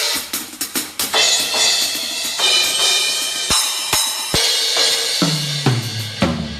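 Drum kit played in a sound check: fast snare and bass drum strokes with crash and ride cymbals (Zildjian A Customs) ringing over them. Near the end comes a fill down the toms, each one lower than the last.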